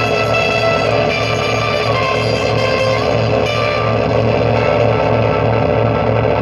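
Live instrumental music: an electric guitar playing over a low, evenly pulsing bass, about three pulses a second, with sustained tones.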